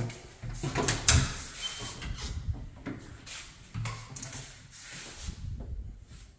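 Knocks, clicks and rubbing of a wooden closet door being handled, over footsteps and handling noise on a hard tiled floor. The loudest knock comes about a second in.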